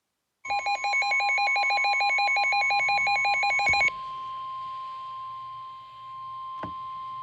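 NOAA Weather Radio warning alarm tone, a steady tone of about 1 kHz, with a loud, fast warbling alarm of about ten alternations a second layered over it for the first three and a half seconds. The steady tone then continues alone, quieter, and cuts off near the end, signalling that a warning message follows.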